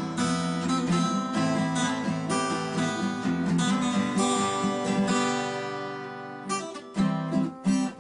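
Background music: a strummed acoustic guitar piece. About six seconds in, a held chord dies away before the strumming picks up again.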